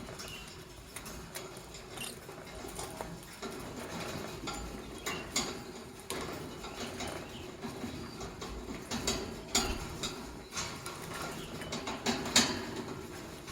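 Lovebirds in a cage making irregular clicks and scratches, with a few faint short chirps.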